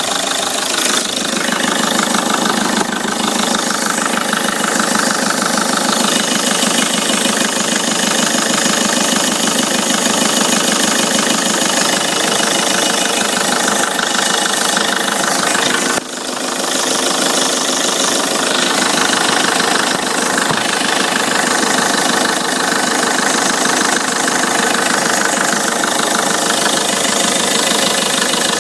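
Peugeot 307 2.0 HDi 136 diesel engine running steadily, with a strange, abnormal noise that the owner cannot explain. The level drops briefly about 16 seconds in.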